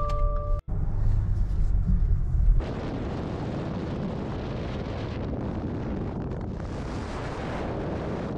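Wind buffeting the microphone of a camera held outside a moving car, with road noise underneath. It is a heavy low buffeting for about the first two seconds, then a steadier rushing hiss.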